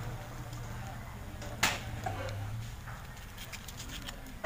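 Hands handling a PVC pipe frame and its small gear motor while joining the motor's wires, with one sharp click about one and a half seconds in, over a low steady hum.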